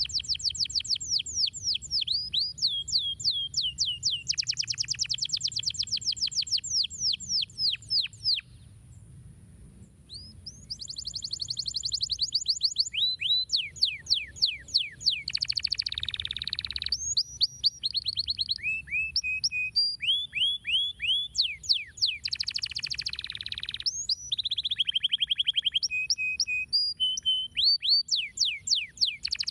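Domestic canary singing: fast trills of rapid downward-sweeping notes and short whistled phrases, with a pause of about two seconds near a third of the way through before the song starts again.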